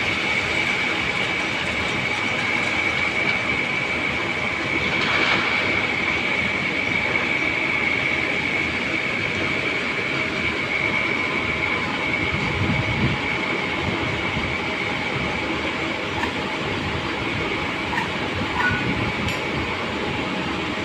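Steady, continuous mechanical noise with a constant high-pitched whine running through it, and a brief swell about five seconds in.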